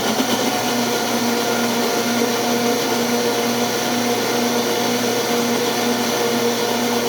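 Kitchen blender running steadily at high speed, beating sponge cake batter just after the baking powder has gone in.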